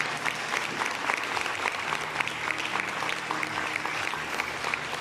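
Theatre audience applauding at a curtain call, many hands clapping steadily with individual claps standing out.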